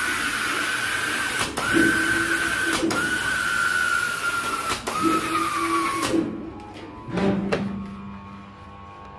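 Hot melt spray gluing machine spraying glue: a loud, steady compressed-air hiss with a high whistle that dips slightly, broken by three brief pauses, with a lower hum from the gantry drive at times, cutting off about six seconds in. A short knock follows about a second later, then a faint low hum.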